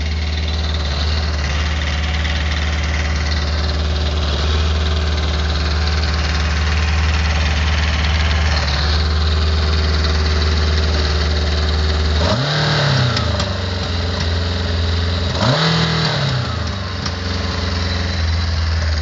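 Yamaha XJR1200's air-cooled inline-four idling steadily, blipped twice a few seconds apart, the pitch rising and falling each time. It has a knock that the owner wonders may come from the valves.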